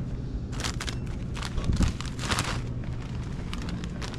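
Steady low hum of an idling vehicle engine, with a run of short rustling clicks and one low thump about two seconds in, like things being handled.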